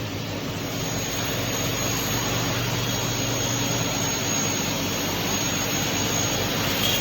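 CNC double-head aluminium cutting saw running, its motors and blades spinning with a steady noise and a thin high whine, building up over the first couple of seconds and then holding steady.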